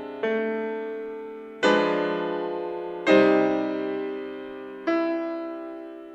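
Background piano music: slow chords, four struck in turn, each left to ring and fade before the next.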